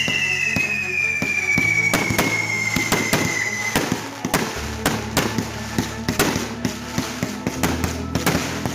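Fireworks going off: a rapid, irregular string of bangs and crackling pops, with a whistle falling in pitch that fades out about four seconds in.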